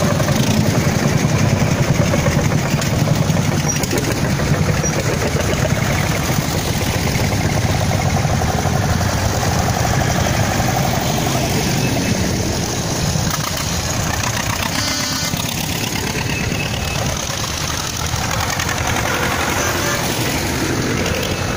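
Engines of several old farm tractors running as the tractors drive slowly past one after another: a steady, low, pulsing chug.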